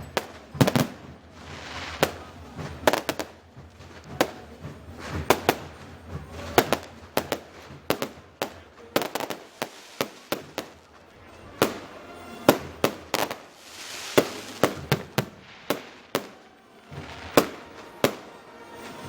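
Fireworks display: aerial shells bursting in an irregular run of sharp bangs, roughly two a second, with crackling and hissing between the reports.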